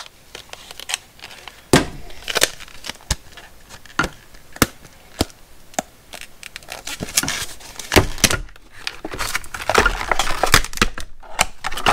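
Stiff plastic blister packaging crackling and snapping as screwdrivers are worked out of it by hand: a string of sharp cracks, sparse at first and busier in the second half.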